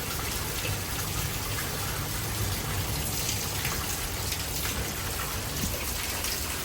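Heavy rain pouring down in a severe thunderstorm, a steady dense hiss with many small drop ticks and a low rumble beneath.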